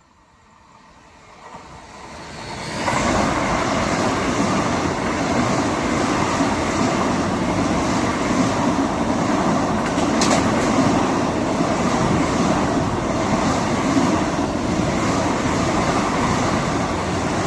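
Vande Bharat Express electric trainset passing close at high speed: the rush of wheels on rail and air builds over about three seconds, then holds loud and steady.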